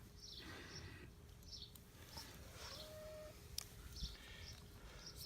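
Quiet background with faint, short, high bird chirps repeating every second or so, over a faint steady hum.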